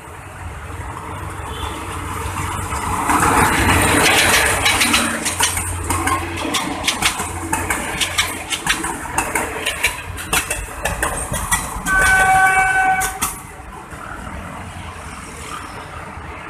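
A GE U15C diesel locomotive hauling ex-JR 203 series cars passes close by. Its rumble builds as it approaches, then the wheels click-clack rapidly over the rail joints as the cars go by. A horn sounds for about a second and a half near the end before the sound drops away as the train moves off.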